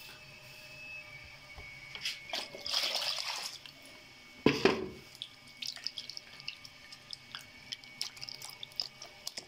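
Hands working a soft pale lump in a bowl of water. Water sloshes about two seconds in, then comes a heavy plop about halfway as the lump goes into the water, followed by small splashes and drips as it is squeezed and turned.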